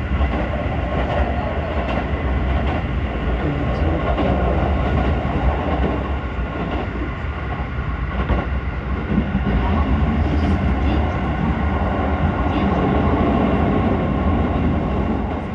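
Tokyo train running: a steady, loud rumble of the train and its rail noise.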